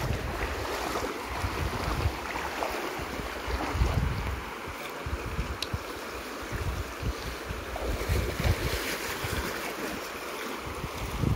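Shallow stream water rushing and splashing around a man wading through it with a bamboo-poled fishing net, with irregular wind gusts buffeting the microphone.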